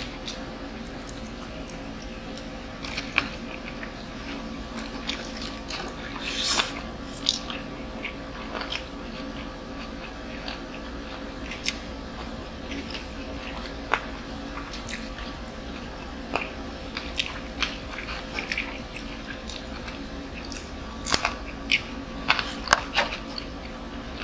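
Two people eating: chewing and crunching food, with many short sharp clicks and taps of forks and spoons against the food boxes, busiest near the end.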